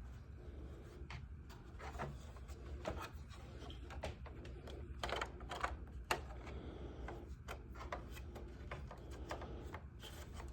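Irregular small clicks and rustles of hard plastic model-kit parts being handled and fitted by hand.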